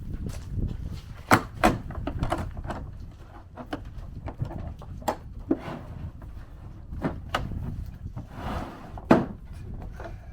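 Irregular knocks and clatter of wood being handled, with a few sharp loud knocks and a brief rush of noise near the end.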